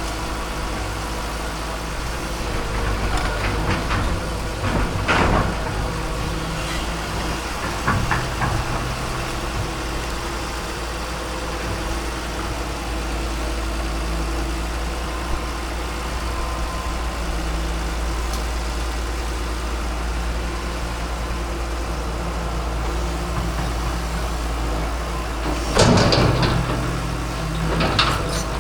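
Excavator's diesel engine running steadily, with a few short louder bursts of noise, the loudest two near the end.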